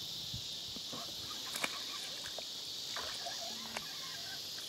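Steady high chorus of insects, with a few sharp clicks, the loudest about a second and a half in.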